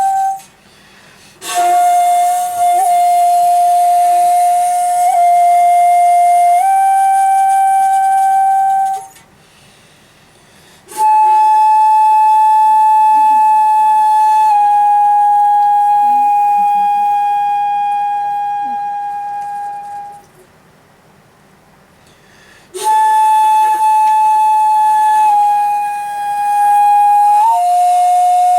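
Komuso-style shakuhachi playing a slow solo piece: three long held phrases, each a sustained note that steps once or twice in pitch, separated by pauses of about two seconds.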